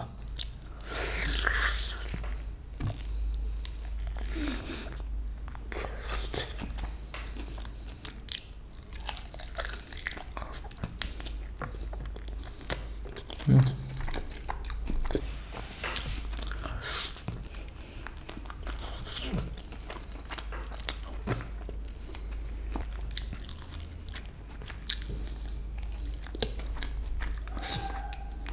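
Close-up eating sounds of Korean fried chicken wings being bitten and chewed: irregular crunching and many small clicks, over a steady low hum.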